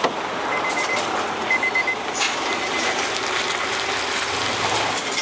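Car-carrier truck manoeuvring close by, its engine running steadily while a high electronic warning beeper sounds short runs of pips about once a second. There is a sharp knock right at the start.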